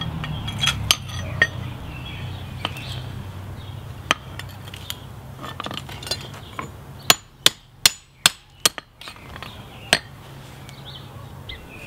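Hand hammer striking a hot forged axe head on a steel mandrel at the anvil, shaping its eye. There are a few scattered light taps at first, then a quicker run of about six sharp metallic strikes between seven and ten seconds in, under a low steady hum that fades partway through.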